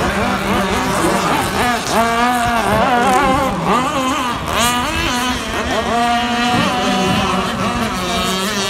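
Several radio-controlled racing boat engines running together, their pitch rising and falling as the boats accelerate and turn on the course.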